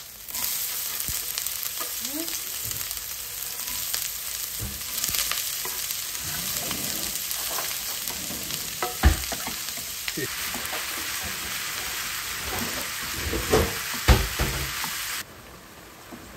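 Chopped garlic and then diced onion sizzling in hot oil in a non-stick pan, a steady frying hiss that cuts off suddenly near the end. There are a few sharp knocks, most of them in a cluster a little before the hiss stops.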